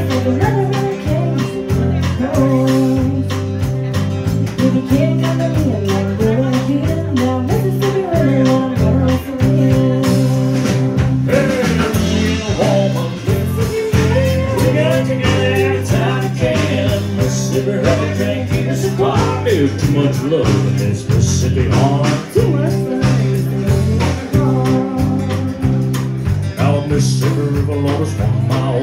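Live country band playing: fiddle and strummed acoustic guitar over a steady, repeating low bass pattern, with a woman singing.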